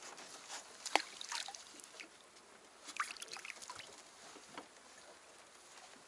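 Scattered light knocks and clicks aboard a small hand-rowed boat, the sharpest knock about a second in and a cluster of them around three seconds.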